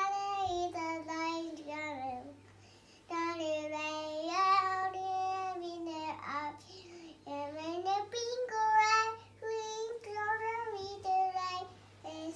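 A young girl singing nursery rhymes unaccompanied, in sung phrases with brief pauses between them.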